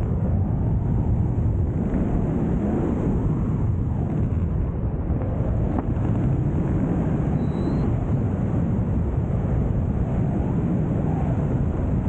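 Steady rushing wind on the microphone of a harness-mounted camera as a paraglider swings through wingovers, the airflow buffeting the mic.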